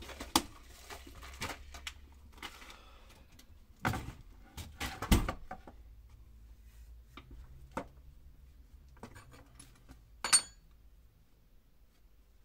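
Scattered clicks, knocks and rattles of small tools and metal parts being handled and set down, with a sharp, ringing metallic clink about ten seconds in.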